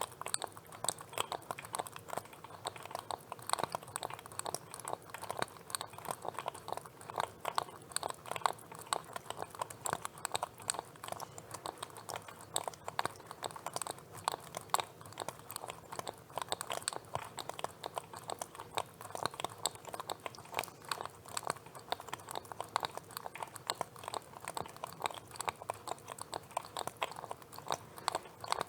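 Lobster making rapid, irregular clicking and crackling sounds, many clicks a second without a steady rhythm.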